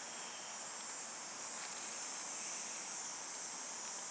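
Steady, high-pitched chorus of insects buzzing without a break.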